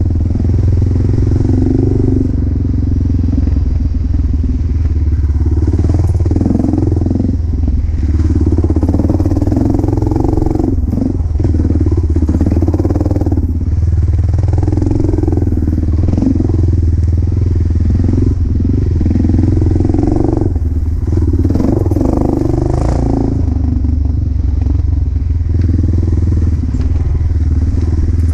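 Single-cylinder four-stroke dirt bike engine under way, its revs rising and falling again and again with the throttle over a steady low drone.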